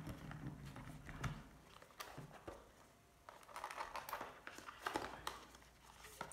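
Cardboard packaging being handled: a phone box's white cardboard inner tray is lifted and tilted, giving scattered light scrapes, taps and rustles.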